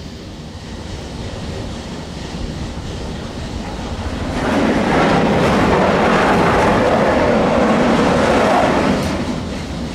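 Montaz Mautino detachable gondola cabin running through the sheave assembly at the station entrance: a loud rattling rumble of the grip and rope over the sheaves, which builds about four seconds in, lasts about four and a half seconds, then dies away. A steady low rumble of the lift runs underneath.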